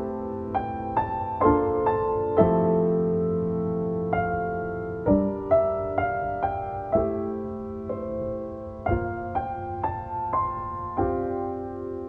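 Background music: a slow, gentle solo piano piece. Single notes are struck about once or twice a second, each ringing on over held chords.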